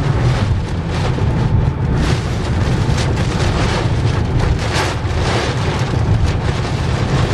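Severe squall-line straight-line winds gusting against and around a moving car: a loud, continuous rumbling rush that swells irregularly with each gust.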